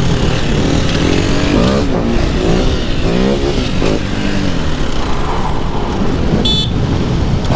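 Dirt bike and ATV engines revving up and down while riding, over heavy wind noise on the microphone. A brief high-pitched tone sounds near the end.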